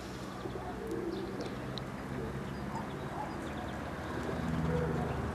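Pigeons cooing in short low phrases, with small birds chirping now and then, over a steady low rumble.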